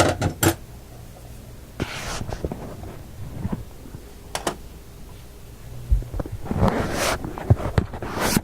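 Someone moving about and handling small things: scattered clicks and rustling, a few low thumps, with a longer stretch of rustling near the end.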